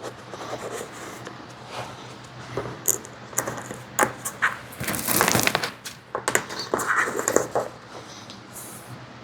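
Hands handling a welding helmet with a flashlight bracket: scattered clicks and knocks of plastic and metal parts, with a louder rustling scrape about five seconds in.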